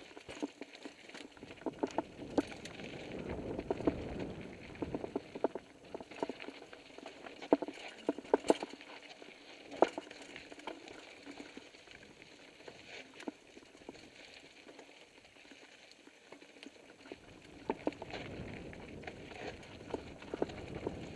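Mountain bike rolling down a rocky, gravelly trail, rattling with irregular sharp knocks and clicks as the tyres strike stones, over a hiss of tyres on loose dirt that swells twice.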